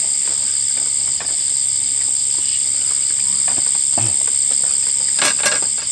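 Insects droning steadily in a continuous high-pitched buzz, with a couple of sharp clicks near the end.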